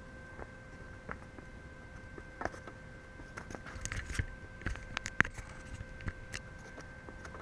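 Scattered light clicks and knocks of a MIG welding gun and its cable being handled between welds, with a few dull thumps around the middle, over a faint steady hum; no welding arc is running.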